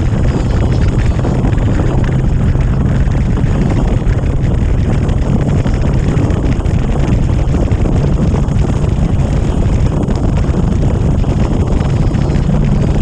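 Motorcycle cruising at steady speed, its engine a steady low note under heavy wind rushing over the microphone.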